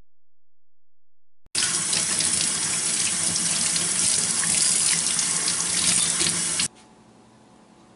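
Tap water running from a utility-sink faucet and splashing over a northern pike fillet as it is rinsed by hand. The water starts about one and a half seconds in and cuts off suddenly near the end.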